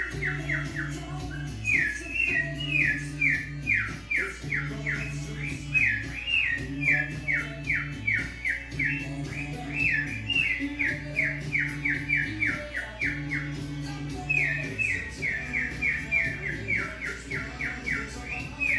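Male cockatiel singing a rapid string of short falling whistled chirps, about three a second in long runs, over background music with a repeating low bass line.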